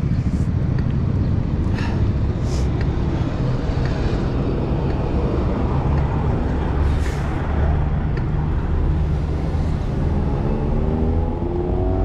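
Motor vehicles running on the road: a steady low engine rumble with a few short hisses, and an engine revving up near the end.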